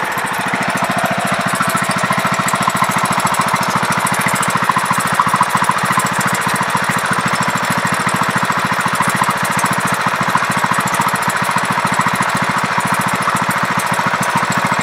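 A 17.5 hp lawn mower engine running steadily on gasoline, with a fast, even firing rhythm, as its fuel line is clamped off so that it will run dry.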